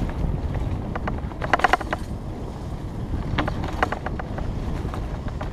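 Felt 29er mountain bike riding fast over dirt singletrack: a steady low rumble of tyres on the trail and wind on the camera microphone, with short clattering rattles of the bike over bumps about a second and a half in and again near four seconds.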